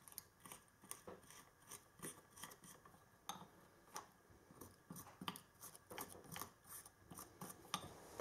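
Faint, irregular light clicks and scratches of a pen tip being dabbed and rubbed against small metal terminals and wires.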